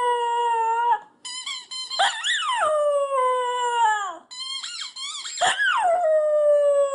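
Small white dog howling with a green dumbbell-shaped rubber squeaky toy in its mouth, the toy squealing along. The sound comes as a series of long, wavering notes that swoop up and down in pitch.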